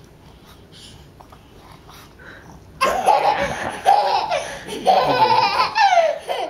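A toddler laughing loudly in repeated high-pitched peals, starting about three seconds in after a quiet stretch.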